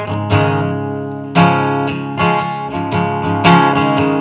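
Acoustic guitar strummed, with a sharp accented strum about once a second and the chords ringing on between strokes; no singing.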